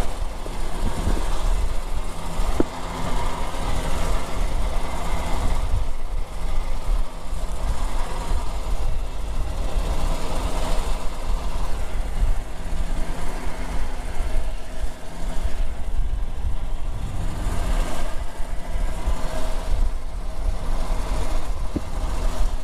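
Boat engine running steadily under a constant rushing noise.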